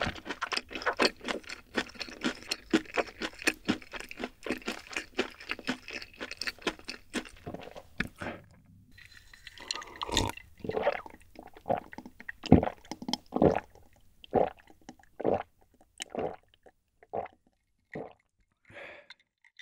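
Close-miked chewing with crisp crunching, then, after a short break, gulping a drink from a glass jar: a run of loud swallows about one to two a second that thin out near the end.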